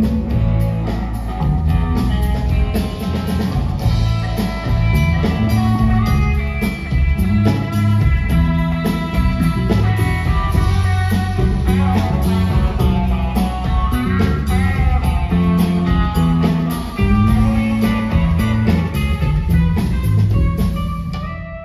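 Live rock band playing an instrumental passage without vocals: electric guitar, bass and drum kit keeping a steady beat.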